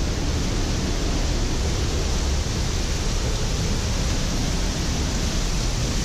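Pailón del Diablo waterfall pouring close by: a loud, steady rush of falling water.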